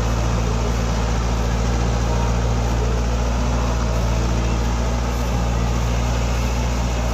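Heavy diesel engine running steadily at a constant speed, an even low hum that does not change in pitch.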